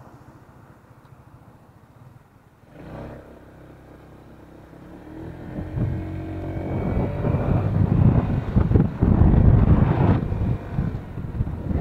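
Honda ADV150 scooter's single-cylinder engine accelerating away from a stop, its pitch climbing during the first half as speed builds. Over the second half wind rumbling on the microphone grows loud and drowns the engine.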